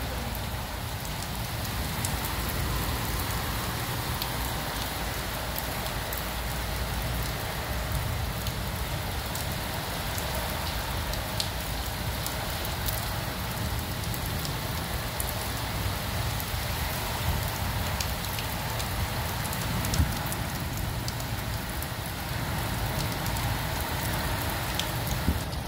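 Heavy rain falling steadily onto standing water on a flooded paved courtyard: a dense, even hiss with scattered sharp drop taps.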